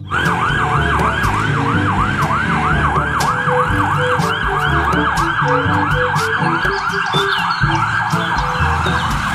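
Toy ambulance's electronic siren wailing in a fast, even rise-and-fall, about three cycles a second, with low steady tones under it.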